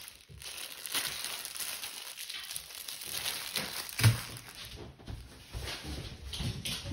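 Crinkling of the plastic bag wrapped around a rolled diamond painting canvas as it is handled, with one knock about four seconds in as the package is set down on a wooden table.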